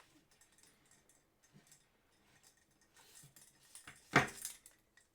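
Mostly near silence, with a few faint clicks and one short, louder noise about four seconds in.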